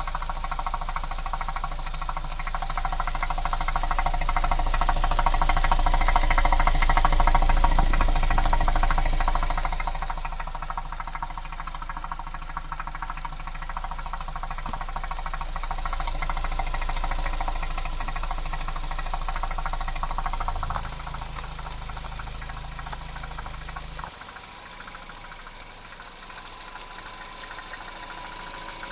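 Citroën C4 Picasso's 1.6 THP 150 (EP6DT) turbocharged four-cylinder petrol engine running, with a busy mechanical ticking and rattle. It gets louder a few seconds in and eases back, and near the end a deep low hum drops away while the engine keeps running.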